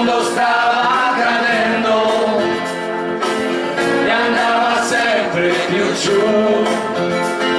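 A mixed group of men and women singing a song together into microphones, with instrumental backing.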